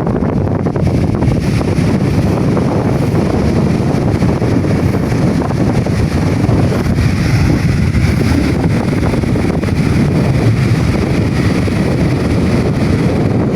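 Strong sea wind buffeting the microphone in a loud, steady rush, with waves washing onto a sandy beach underneath.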